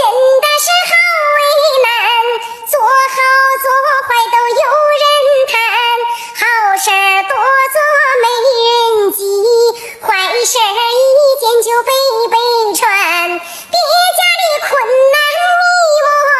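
A high-pitched voice singing a continuous melody in gliding, breaking notes, with no audible accompaniment underneath.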